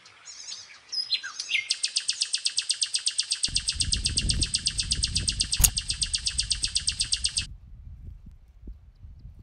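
Birds chirping: short, high, falling calls, then a fast, even trill of about seven pulses a second that stops abruptly near the end. A low rumbling noise runs under the trill from about the middle, with one sharp click.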